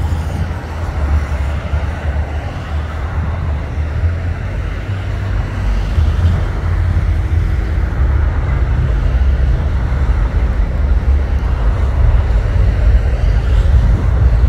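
Boeing 737 MAX 8's CFM LEAP-1B jet engines giving a low, steady roar during the landing rollout, growing louder about six seconds in.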